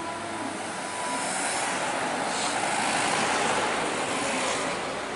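Road traffic noise: a passing vehicle's engine and tyres. It swells to its loudest about three seconds in and eases off near the end, with no horn sounding.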